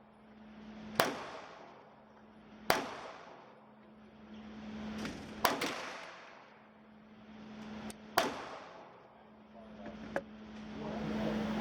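Gunshots from an Aero Precision EPC-9 9mm pistol-caliber carbine: four loud single shots fired one to three seconds apart, each with an echoing tail, with a few fainter shots between them.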